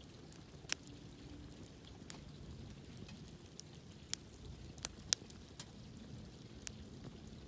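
Wood campfire crackling: sharp pops at uneven intervals, about seven in all, the loudest about five seconds in, over a low steady rumble.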